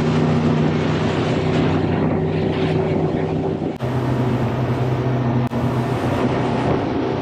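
Boat engines running steadily under way, over a wash of wind and water noise; the engine note shifts lower about four seconds in.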